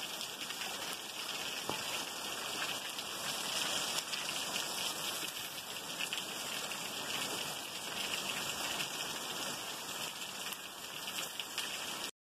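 Steady rain falling, an even hiss that cuts off suddenly near the end.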